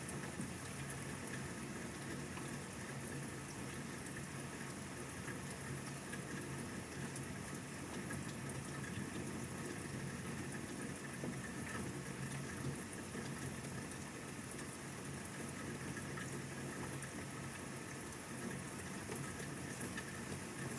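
Steady rain falling, an even hiss with scattered faint taps of drops.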